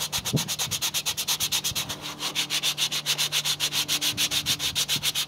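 80-grit sandpaper rubbed by hand over Bondo body filler on a 3D-printed part, in quick, even back-and-forth strokes, knocking the filler down to the print lines. The rasping stops abruptly at the end.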